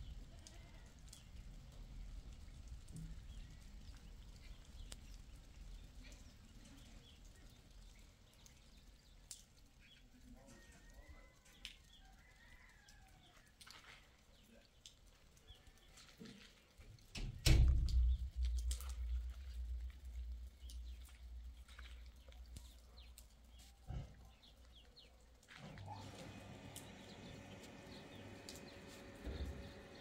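Wind buffeting the microphone in low rumbling gusts, the strongest a little past the middle, with faint distant bleating of livestock. Near the end the background turns to a steadier low hum.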